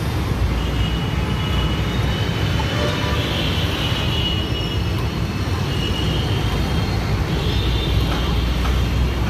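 Busy roadside traffic noise: a steady low rumble of passing vehicles, with faint voices in the mix.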